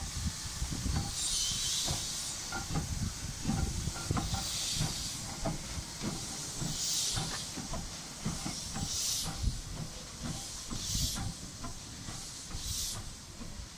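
1916 Hudswell Clarke saddle tank steam locomotive pulling away from a stand: about six slow exhaust chuffs that come closer together as it gathers speed, over a steady hiss of steam and the clank and rumble of the motion and wheels.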